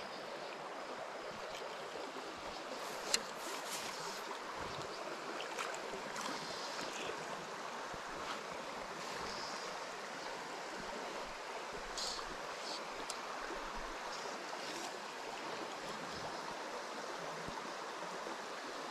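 Small rocky stream flowing, a steady rush of water, with a few faint ticks and one sharper click about three seconds in.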